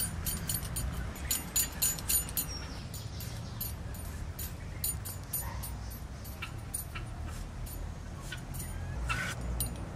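Iron blade scraping the skin off a raw potato: many short, quick scraping clicks, thicker in the first half and thinning out later, over a low steady hum.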